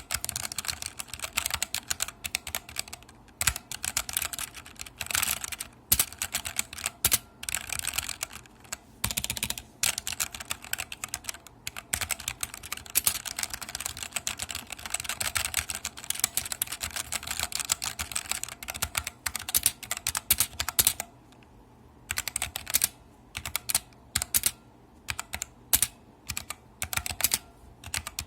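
Ajazz AK33 mechanical keyboard with black linear switches being typed on continuously, a rapid, irregular stream of key strikes. The typing pauses briefly about three-quarters of the way through, then resumes.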